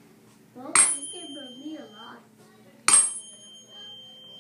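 Tuning fork struck twice, about two seconds apart. Each strike is a sharp click followed by a high, clear ringing tone that hangs on for a second or two.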